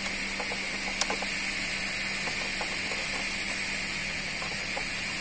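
Steady hiss with a faint low hum, broken by one sharp click about a second in and a few faint small clicks as hands fit the mounting nuts of a Hero Passion Pro's headlight visor bracket.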